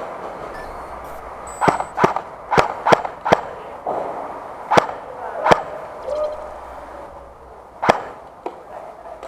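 Airsoft AK74 rifle firing single shots: about nine sharp cracks, five in a quick run between about two and three seconds in, then a few more spread out, the loudest near the end.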